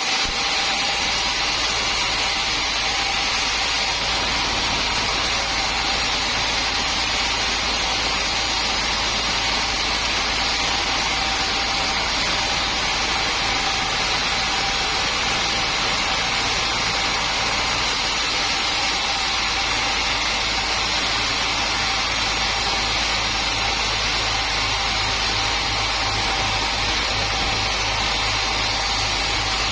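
Sawmill machinery running steadily: an even mechanical hum and hiss with a constant whine, and no sign of a cut loading it.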